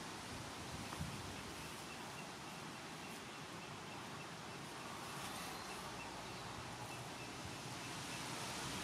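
Steady outdoor noise of wind over the sea, with a faint, high note repeating evenly for a few seconds in the middle.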